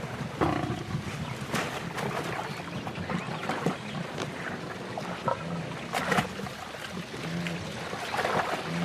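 Splashing and thrashing in shallow creek water as a lioness attacks a wildebeest, with irregular sharp splashes and short, low animal grunts every second or so.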